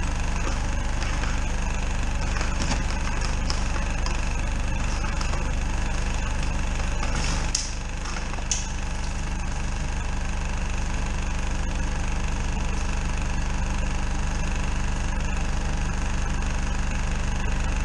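Drain-jetting machine's engine running steadily, with a brief dip and two short sharp clicks about halfway through.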